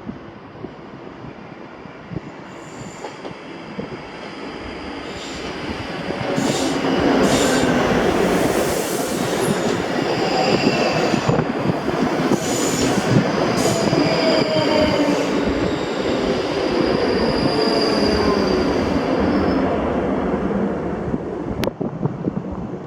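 ScotRail passenger train running through the platform at Bathgate, building up from about four seconds in and easing off near the end. High wheel squeals come from the rails, along with a whine that slides in pitch.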